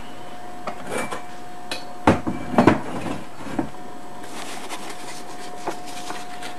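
Papers and box contents being handled: a cluster of knocks and clatter about two to three seconds in, the loudest part, then paper rustling. A faint steady whine runs underneath.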